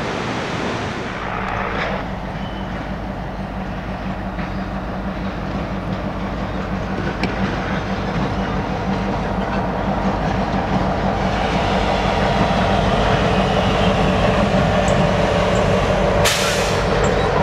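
Norfolk Southern diesel locomotive hauling a freight train of covered hoppers past at low speed, its engine running with a steady low hum that grows louder as it nears. The wheels clatter over the rails, with a sharp noisy burst near the end.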